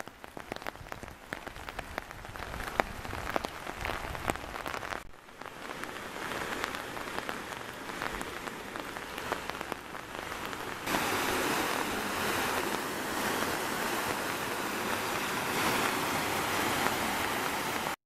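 Rain falling, with many individual drops ticking sharply on an umbrella overhead. About eleven seconds in it changes abruptly to a louder, steady hiss of rain and falling water.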